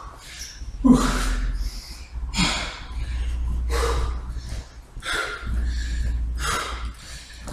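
A man breathing hard, with loud snorting breaths and grunts repeated about once a second.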